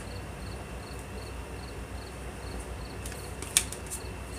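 A cricket chirping steadily, short chirps repeating about three times a second, over a low steady hum. A single sharp click sounds about three and a half seconds in.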